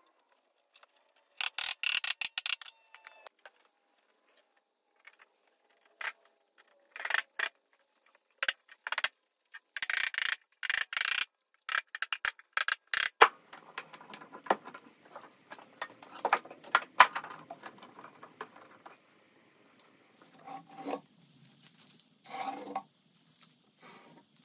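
Wooden drawer parts handled on a workbench and tapped together with a mallet: a run of sharp knocks and clatters, some in quick clusters, loudest about halfway through. Softer rubbing and scraping fills the later part.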